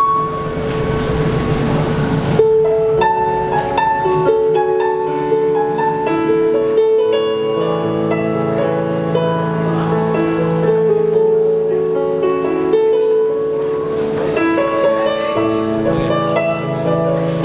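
Piano playing a slow, flowing melody over sustained chords. A rushing noise sits under the first couple of seconds and stops abruptly.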